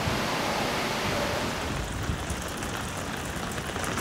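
Steady rushing noise of typhoon wind and heavy surf breaking on rocks. About two seconds in it turns duller, with a few low gusty rumbles.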